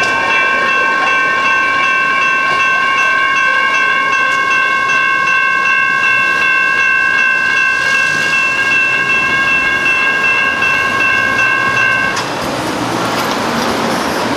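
General Signals Type 2 electronic railroad crossing bell ringing continuously while the crossing is active. It cuts off abruptly about twelve seconds in as the crossing deactivates, leaving the sound of road traffic.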